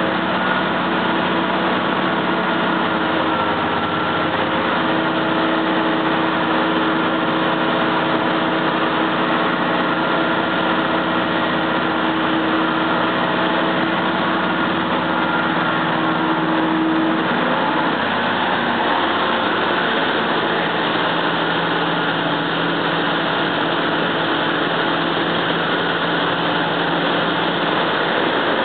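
Heavy marine engine running steadily, a continuous drone with a mechanical hum; about two-thirds of the way through its note shifts, as the engine speed or load changes.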